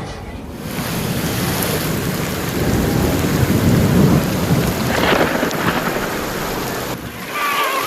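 Heavy rain pouring down with rolling thunder, the low rumble swelling about halfway through.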